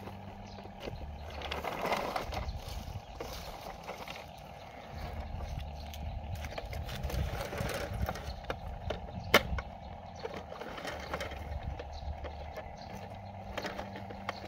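Plastic toy construction vehicles being handled and pushed over dirt: scattered small clicks and scraping, with one sharp click about nine seconds in, over a steady background hum.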